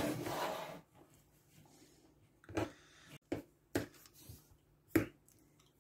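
A plastic power strip and its cord sliding and rustling across a cutting mat, then a handful of short, sharp clicks and snips as small side cutters nick into the power cord's jacket.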